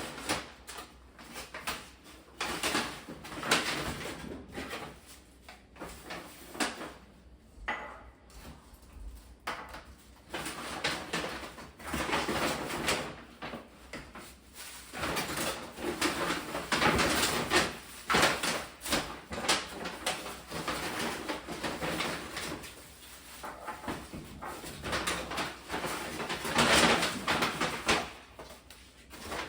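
Kitchen handling noises: irregular knocks, clicks and clatter of things being picked up, set down and moved about, with a drawer or door opening and closing.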